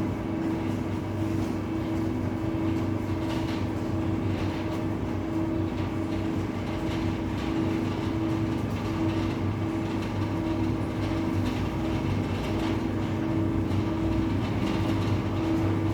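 Electric gate operator motor running steadily with a constant hum as it drives a 6 m automatic gate, likely a sliding gate on its track.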